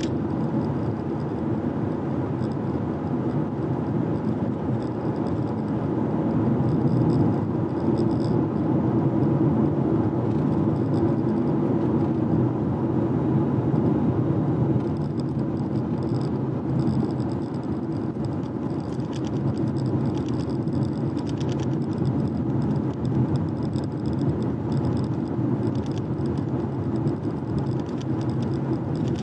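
A car driving at steady speed: continuous tyre and road noise with a low engine hum, swelling a little for several seconds in the middle.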